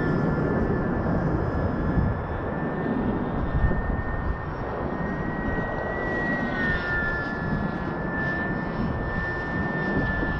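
Electric motor and propeller of an E-flite UMX Pitts S-1S ultra-micro RC biplane whining at a steady high pitch that rises slightly and falls back about halfway through. Strong wind buffets the microphone with a heavy low rumble underneath.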